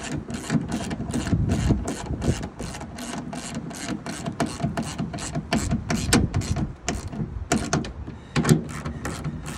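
3/8-inch socket ratchet clicking rapidly and evenly, about four clicks a second, as it runs 13 mm bolts in. Wind rumbles on the microphone underneath.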